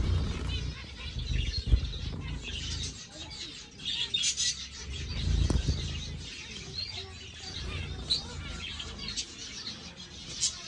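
Small caged finches chirping with many short, high calls, and wings fluttering in the cage. Two low thumps stand out.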